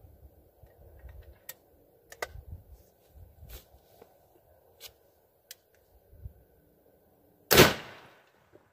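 A single rifle shot from a .450 Bushmaster firing a 225-grain handload, about seven and a half seconds in, trailing off over about half a second. Before it come faint clicks and rustles as the rifle is steadied on its rest.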